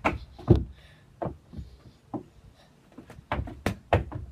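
Football being kicked and bouncing on wooden decking: a run of dull thuds and knocks, the loudest about half a second in, with a quicker cluster of them near the end.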